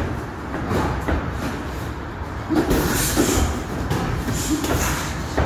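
Boxing sparring in a ring: scattered, irregular thuds of gloved punches and footwork on the canvas over a steady low rumble.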